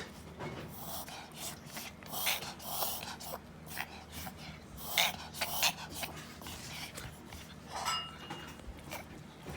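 Toy poodle reverse sneezing: a rapid, irregular run of short, noisy breaths through the nose, a few a second. A vet judged these spells reverse sneezing that needs no treatment, brought on by excitement.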